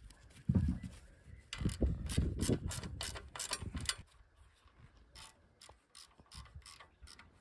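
Socket ratchet wrench clicking as he turns the bolts on a chainsaw mill's bar clamp. The clicks come in quick runs, loudest between about one and a half and four seconds in, then fainter and more scattered.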